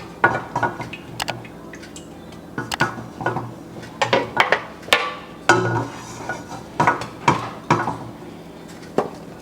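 Kitchenware being handled: dishes, pots and utensils knocking and clinking against each other in irregular sharp knocks, about a dozen of them, some ringing briefly.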